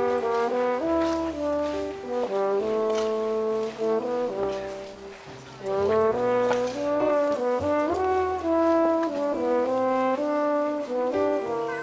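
Instrumental background music: a melody of held notes stepping up and down over a low bass line, with light percussion.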